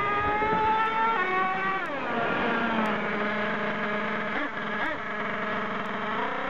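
Small .28 nitro engine of a Thunder Tiger MTA4 S28 RC monster truck running at speed, its whine climbing slowly in pitch, then dropping sharply as the throttle comes off about two seconds in. It then runs lower and steadier, with a couple of short throttle blips near the end.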